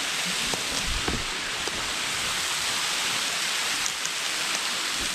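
A waterfall's steady rushing splash, with a few faint ticks of drops.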